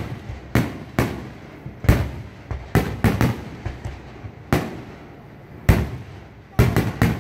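Fireworks display: aerial shells bursting overhead in an uneven string of about a dozen sharp bangs, some coming in quick clusters of two or three.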